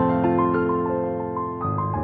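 Background instrumental music: a repeating pattern of high notes over held low notes, the low notes changing near the end.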